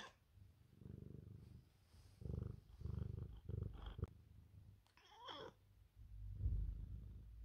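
Bengal cat purring in several low, pulsing runs, with one short meow about five seconds in.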